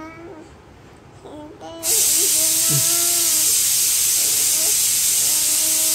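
A toddler babbling in a sing-song voice, and about two seconds in a loud, steady hiss starts abruptly: a pressure cooker letting off steam.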